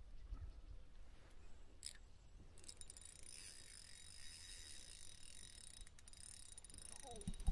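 A fishing reel's mechanism running for about three and a half seconds, a fine high whirr with steady high tones in it, starting about two and a half seconds in after a single click. A sharp thump near the end is the loudest sound.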